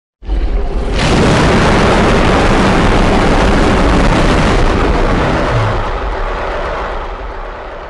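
Custom-made giant-monster roar sound effect: a loud, rough, noisy roar with a deep rumble underneath. It starts abruptly, swells about a second in, holds, then slowly fades out near the end.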